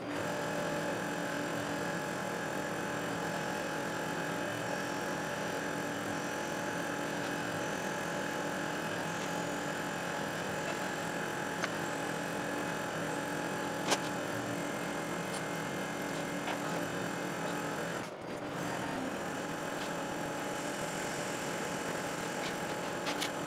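Tormach 8L CNC lathe running, its spindle turning a brass bar while gang-mounted tools drill and turn it under flowing coolant. It makes a steady whir with a few sharp clicks, and the sound briefly drops about 18 seconds in.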